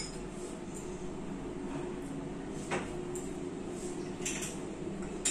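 A few light clicks and knocks of cutlery on a plate during a meal, over a steady low room hum.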